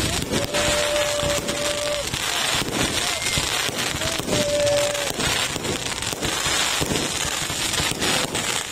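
Aerial fireworks going off in quick succession: dense bangs and crackling from bursting shells and rising comets. A steady whistle-like tone sounds twice, once for nearly two seconds near the start and again briefly about four seconds in.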